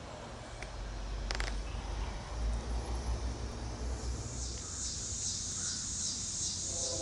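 Insects chirping in a high-pitched, pulsing rhythm a few times a second, starting about halfway through. Before that, a low rumble on the microphone and one sharp click about a second in.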